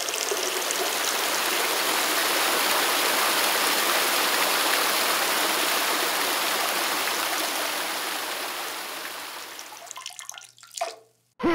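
Toilet flushing: a steady rush of water that tapers off near the end.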